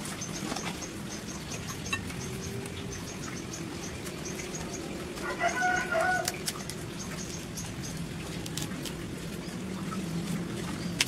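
A hen clucking: one short, loud squawk about halfway through, over a steady low hum and a faint, fast, high ticking.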